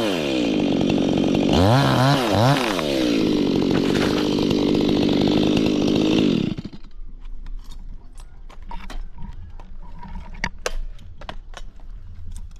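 Two-stroke chainsaw revved twice near the start, then held at high revs, and cut off about halfway through. Scattered faint clicks and knocks follow.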